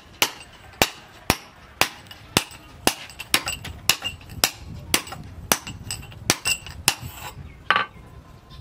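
Hand hammer striking a steel bar: a steady run of metal-on-metal blows with a short ring, about two a second, stopping about a second before the end.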